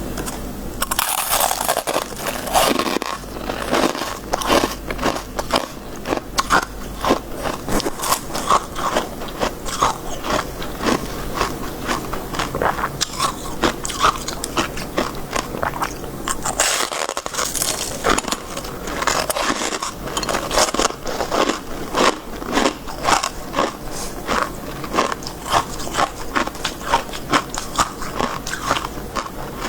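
Freezer frost, crisp shaved ice, being bitten and chewed close to the microphone: a dense run of crunches and crackles, with two longer, louder crunching sweeps about a second in and again around halfway.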